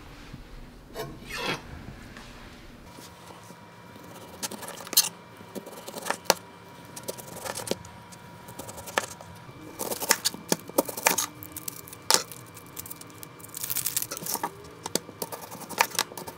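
Chef's knife slicing a tomato and then a red onion on a plastic cutting board, the blade knocking on the board at irregular intervals.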